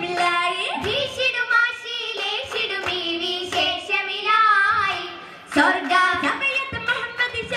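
Girls' voices singing an Oppana song, a Mappila folk song, with sharp hand claps keeping the rhythm, thickest in the second half.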